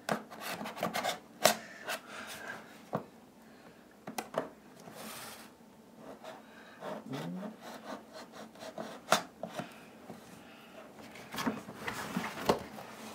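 Scissors cutting and scraping at a cardboard box, with cardboard rubbing and scattered sharp clicks as the box is handled and turned.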